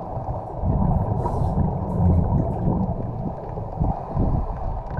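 Underwater ambient noise picked up by a GoPro inside its housing: a low, uneven rumble that swells and dips, with no distinct events.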